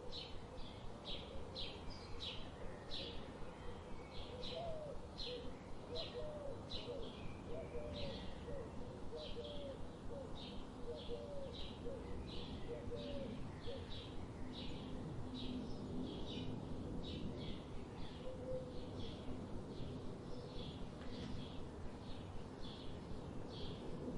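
Small birds chirping: short, high chirps repeat about twice a second over a steady outdoor background hiss. A lower, softer looping call joins for several seconds in the first half.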